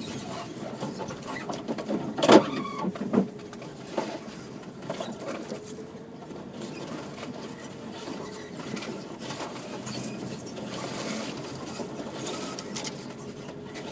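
Subaru XV driving a rough bush track, heard from inside: a low steady hum under irregular scratching, rattling and clicking, with two loud knocks a little over two and three seconds in.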